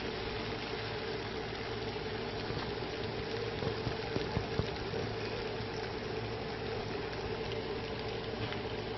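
Chow mein noodles sizzling in a frying pan as they are stir-fried with a wooden spatula, a steady frying hiss over a constant hum. A few knocks of the spatula against the pan about four seconds in.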